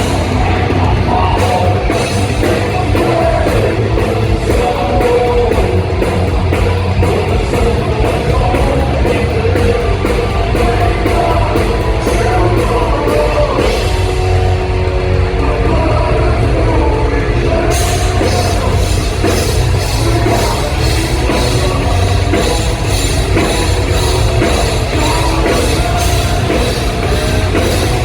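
Live heavy metal band playing loudly: distorted guitars, bass and a fast-hit drum kit with cymbals, with singing. About 14 s in the cymbals drop out for a few seconds, then crash back in.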